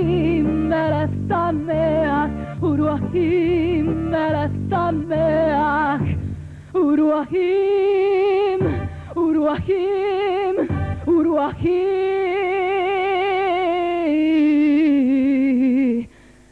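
A woman singing into a microphone with a wide vibrato. For about the first six seconds she sings over low bass notes; after that the accompaniment drops away, leaving her voice alone on long held notes.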